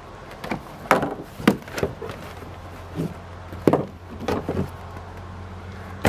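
Handling noises as a deflated vinyl inflatable pontoon and its parts are unfolded and laid on a plastic kayak: about nine scattered knocks and clicks with rustling between them. A steady low hum sits underneath from about two seconds in.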